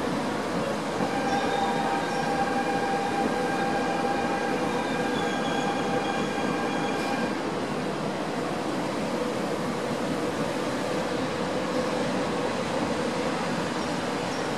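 Double-deck electric commuter trains passing close by with a steady rolling rumble. A high, steady whine sits over the rumble from about a second in and stops about halfway through.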